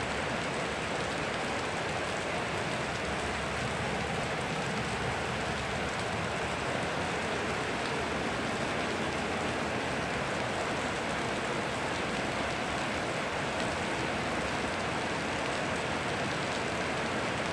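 Steady rain falling, mixed with flowing river water: an even, unbroken hiss.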